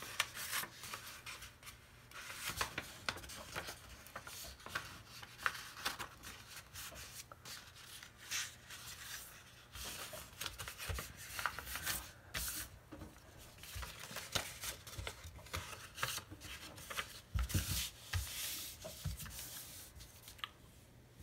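A sheet of printer paper being folded and creased by hand on a tabletop: faint, irregular rustling and crinkling as the paper is turned and pressed flat. A couple of soft bumps come near the end.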